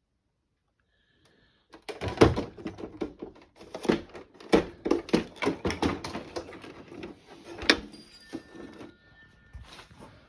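Irregular knocks, clicks and rattles of hard plastic objects being handled and set down, starting about two seconds in.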